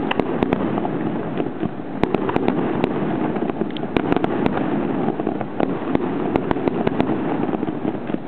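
Aerial fireworks display: shells bursting overhead in an irregular run of sharp bangs and pops, several a second, over a steady noisy background.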